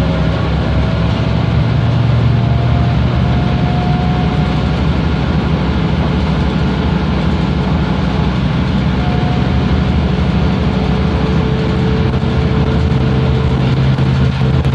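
Mercedes-Benz O405G articulated bus's rear-mounted six-cylinder diesel engine running steadily, heard from inside the passenger cabin, with a faint whine that creeps slightly higher in pitch in the second half.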